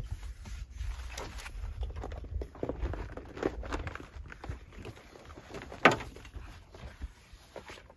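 Footsteps and irregular knocks of someone moving about, with one sharp, loud knock about six seconds in.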